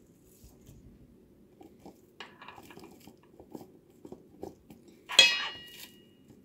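Soft wet scraping and squishing as ground burger meat is scooped from a bowl and pressed onto a plate with a plastic paddle, then one sharp clank with brief metallic ringing a little after five seconds in as the paddle is set down in the stainless steel mixing bowl.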